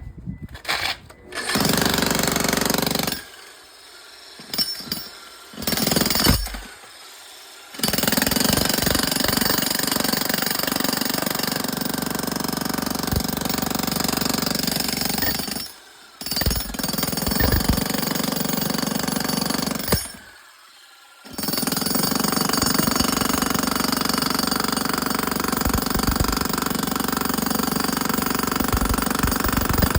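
Makita 75 lb jackhammer breaking up steel-reinforced concrete, hammering steadily in long runs. It stops several times for a second or so, with short stop-start bursts near the beginning.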